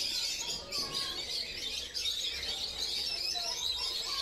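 Many birds chirping at once in a dense, unbroken chorus.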